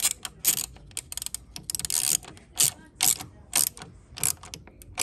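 Socket ratchet clicking in repeated short bursts as its handle is swung back and forth, run down on the bolt that secures the coolant header tank while the tank is refitted.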